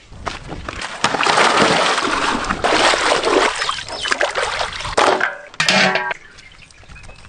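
Water splashing and sloshing in a basin as raw chicken pieces are washed by hand, loud and continuous for about four seconds before it dies away.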